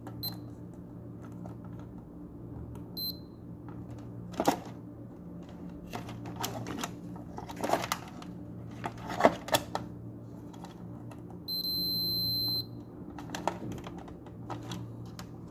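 Fluke digital multimeter in continuity mode beeping as its probe tips touch joints on a fan control board: two short chirps early on, then a steady high beep held for about a second near the end. The beep marks a near-zero-resistance path between the probed points, which is taken as a shorted transistor or diode. The plastic probes click and tap against the board between the beeps.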